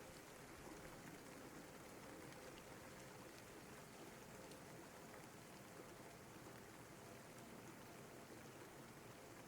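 Faint steady rain: an even hiss with scattered soft drop ticks.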